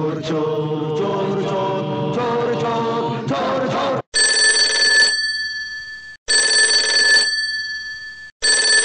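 The closing notes of a Hindi film song's music, then after a sudden cut a telephone ringing: three rings of a steady high-pitched electronic tone, each about a second long and about two seconds apart, the third starting near the end.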